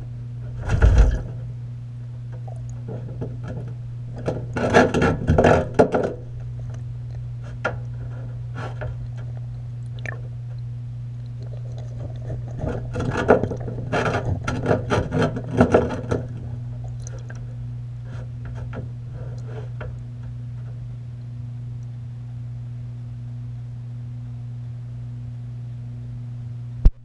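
A capybara moving about and feeding in bathwater, recorded underwater: several clusters of sharp clicks and knocks, the loudest about 1 second in, about 5 seconds in and from about 12 to 16 seconds in. A steady low hum runs underneath.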